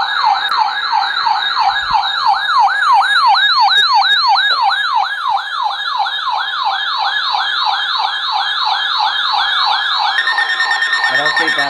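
NOAA weather alert radios sounding their siren alarm for a Required Weekly Test (RWT) alert: a loud, fast, repeating rising whoop, about three or four sweeps a second. About ten seconds in, a steady tone joins it.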